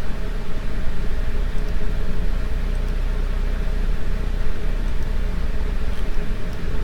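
Steady background noise: an even hiss over a constant low rumble, with a faint steady hum. A couple of faint clicks come near the end.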